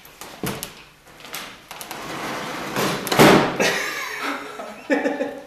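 Knocks and clatter from a long pole and ropes being worked down inside a floor hatch, with a louder, longer burst of scraping noise about three seconds in.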